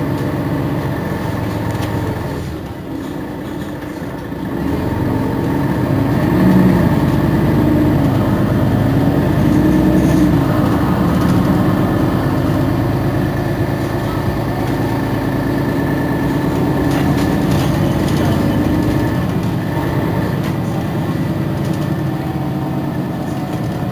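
Mercedes-Benz Citaro G C2 articulated bus idling at a standstill, its engine running steadily under a steady high whine. The engine sound grows louder about five seconds in and stays up.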